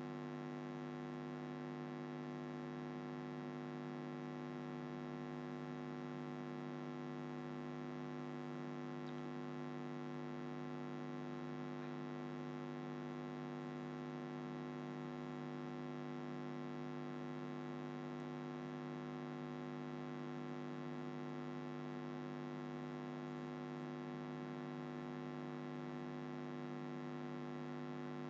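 Steady electrical mains hum with many evenly spaced overtones, unchanging throughout.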